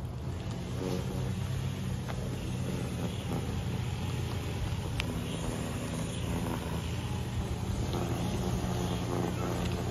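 A steady, low engine hum with a faint click about halfway through.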